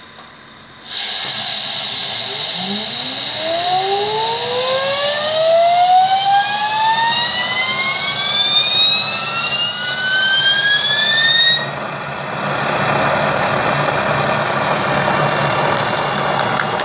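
Homemade turbocharger jet engine starting up: a loud rush comes on suddenly about a second in, then the turbine's whine climbs steadily in pitch as it spools up. After about eleven seconds the high hiss cuts off and the engine runs on with a steady, noisier roar.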